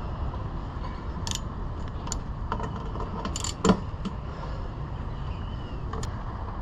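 A few scattered metal clicks and clinks of bolt hardware, a washer and lock washer, being fastened onto a solar panel mounting bracket, with the sharpest click a little past the middle. A steady low rumble lies underneath.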